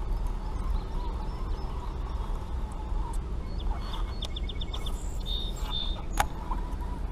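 Birds calling over a steady low rumble. About four seconds in comes a quick run of chirps, with a short call just after. There is one sharp click near the end.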